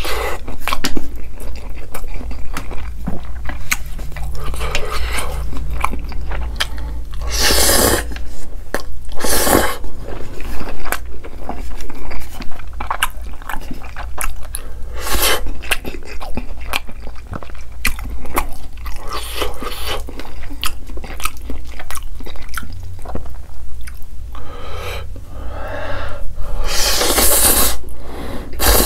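Close-miked eating of saucy instant noodles: wet chewing and mouth clicks throughout, broken by several long, loud noodle slurps, the longest near the end.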